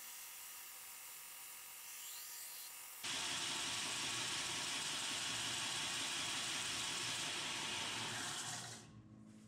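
Belt grinder running with a steel chef knife blade held against the belt for the S-grind, a steady grinding hiss. About three seconds in the sound jumps suddenly louder, then dies away near the end as the grinding stops.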